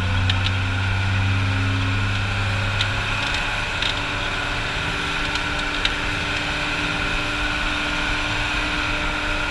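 Fishing boat's engine running steadily with the boat under way, a droning note whose low end eases and shifts slightly about three seconds in. A few light clicks sound over it.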